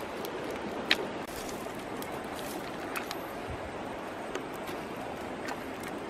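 Steady rushing of a river flowing, with a few sharp clicks over it, the loudest about a second in.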